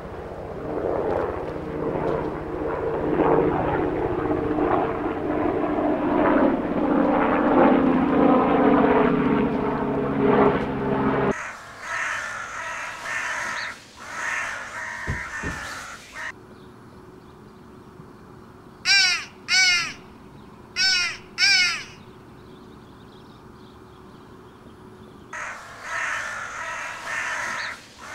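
Crow cawing: four loud caws in two pairs near the middle, each rising and falling in pitch, with a longer stretch of busy noise before them.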